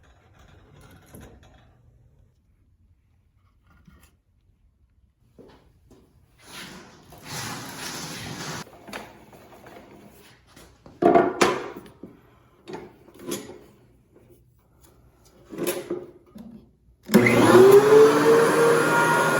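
Scattered knocks and scraping from handling wood and tools, then near the end an electric power-tool motor starting up, its whine rising in pitch over about a second and then running steady and loud.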